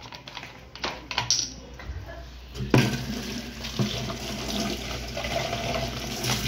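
A few scattered knocks and clicks, then, a little under halfway through, a kitchen tap comes on. Water runs steadily from it into a plastic bottle and splashes into a stainless steel sink.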